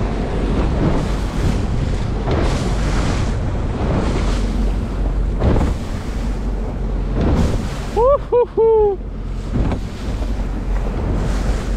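Small rigid inflatable boat running fast through a choppy sea: heavy wind buffeting on the microphone and rushing water and spray that surge every second or so as the hull meets the waves. About eight seconds in, a voice gives three short whooping calls.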